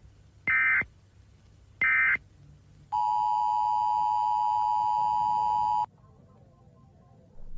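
Emergency Alert System tones: two short, high-pitched bursts about 1.3 s apart, then the steady two-tone EAS attention signal held for about three seconds, cutting off suddenly.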